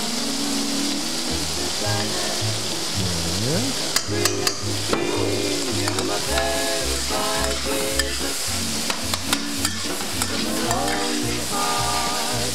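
Beef chunks sizzling in hot oil in a wok while a metal spatula stir-fries them. From about four seconds in, the spatula scrapes and clicks against the pan again and again.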